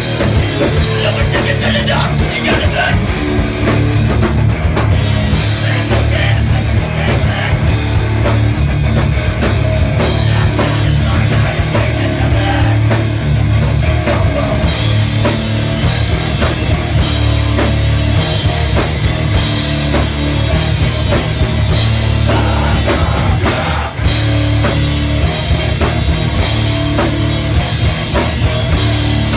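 Hardcore punk band playing live and loud: electric guitars, bass guitar and a drum kit driving hard, with a split-second stop about three quarters of the way through.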